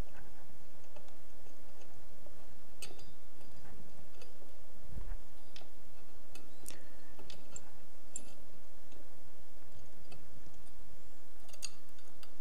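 A handful of sparse, light clicks and ticks as small screws are turned by hand to fasten a metal bracket to a pin-fin heatsink, with a soft low bump about five seconds in.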